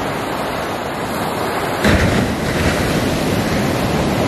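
Ocean surf washing onto a beach: a steady rush of foaming water, with a wave breaking and crashing louder about two seconds in.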